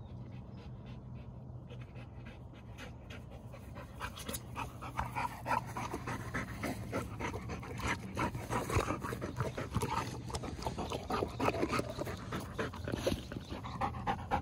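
Golden retriever panting hard and fast, close by, winded from chasing balls. The panting starts about four seconds in and grows louder.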